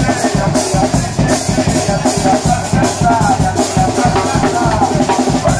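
A charanga street brass band playing a dance tune live: trumpets and tuba carry the melody over a steady bass-drum and snare beat.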